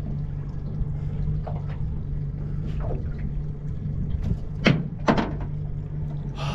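Boat's outboard motor idling with a steady low hum, with two sharp knocks in quick succession about two-thirds of the way in as a half-eaten kingfish is handled against the boat's side.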